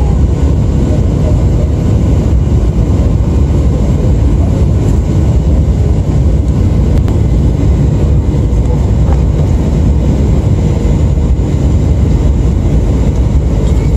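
Steady cabin noise of an airliner in flight: a loud, even rumble and rush of engines and air heard from inside the cabin.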